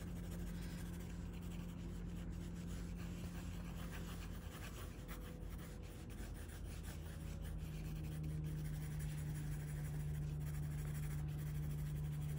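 Graphite pencil scratching and rubbing on sketchbook paper in quick back-and-forth shading strokes, over a steady low hum.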